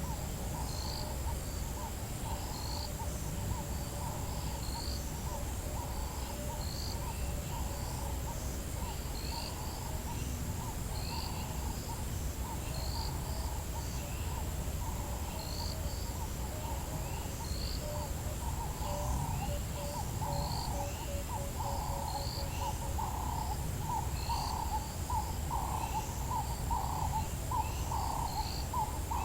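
Bush dawn chorus: birds call in rapid repeated hooting or cooing notes that grow louder near the end, and a faster series of short notes fades out partway through. A high chirp repeats about every second and a half over a steady high insect whine.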